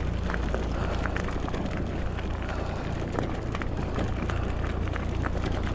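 Fat-tyre e-bike rolling along a forest track: a steady low rumble of tyre and ride noise, with many small crackles and clicks from the ground scattered throughout.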